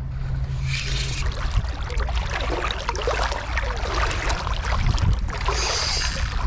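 Shallow seawater splashing and sloshing while a hooked kingfish is fought from the shore. There is a brighter, hissing splash about five and a half seconds in.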